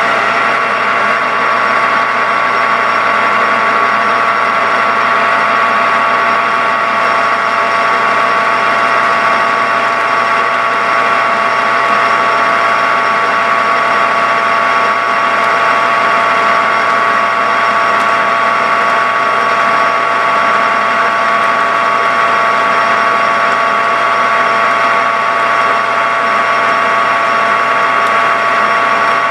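Metal lathe running steadily, its gear train giving a steady multi-toned whine, while a carbide turning tool takes a light cut down the diameter of a small metal piston blank.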